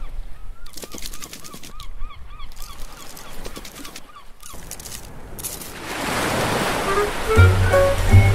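Cartoon intro sound effects: a quick run of short squeaky chirps, about five a second, with light tapping clicks, then a rising whoosh like a wave rushing in. Music notes with a bass line start near the end.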